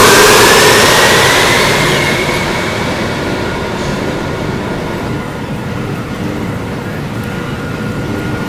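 Montreal metro rubber-tyred train pulling out of the station: its motor whine rises in pitch as it fades away over the first two or three seconds, leaving a steady station hum.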